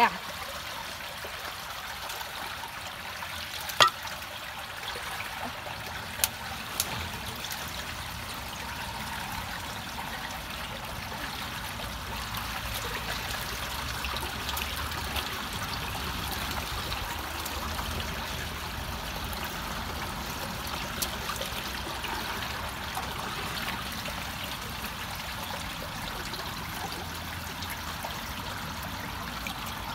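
Water rushing and trickling into a partly unclogged culvert inlet as debris is pulled out of the opening by hand, the flow growing a little fuller about halfway through. A few sharp knocks sound in the first several seconds.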